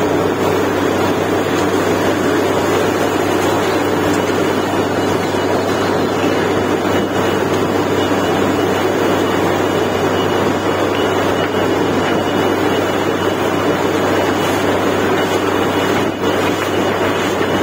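Truck-mounted borewell drilling rig running while drilling, a loud steady machine din with a low hum underneath that barely changes.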